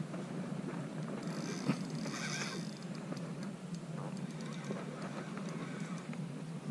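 Spinning reel cranked steadily to retrieve a lure: the handle and rotor turning with a low, even whir and faint ticks. A brief high-pitched sound about two seconds in.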